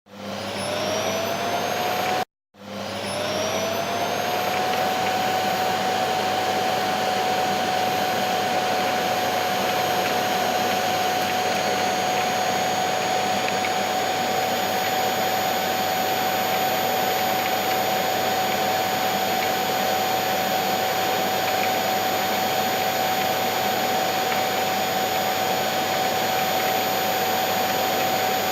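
Electric vacuum cleaner starting up, its motor whine rising in pitch as it spins up, then cutting out abruptly about two seconds in. It starts again, spins back up, and runs on as a steady whine over a rushing air noise.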